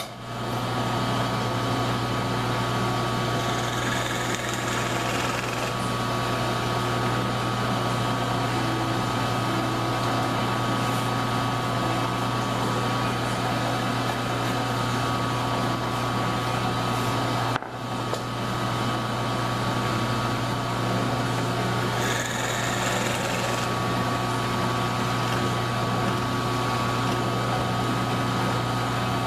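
Drill press running steadily: a constant motor hum with a steady higher whine above it, cutting out for a moment about 18 seconds in.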